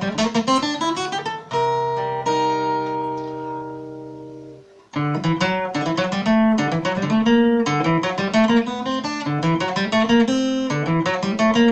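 Acoustic guitar playing a fast run of single plucked notes, then a chord left to ring and fade for about three seconds, then another quick run of notes.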